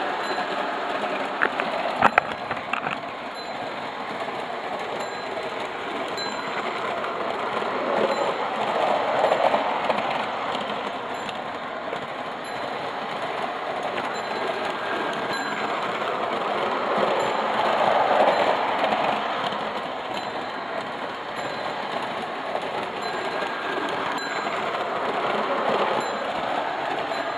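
Lionel O-gauge toy train, an NW-2 diesel switcher pulling freight cars and a caboose, running at speed on tubular track: a steady whir of the electric motor and the steel wheels rolling, swelling twice as it passes close. A few sharp clicks come about two seconds in.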